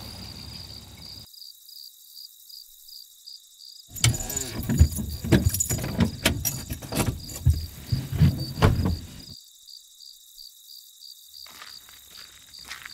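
Crickets chirp in a steady pulsing trill throughout, and a low car rumble dies away in the first second. From about four to nine seconds in comes a run of loud clunks and knocks.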